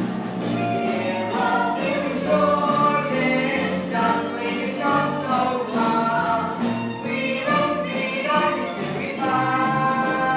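A musical-theatre song: an ensemble of voices singing together with instrumental accompaniment.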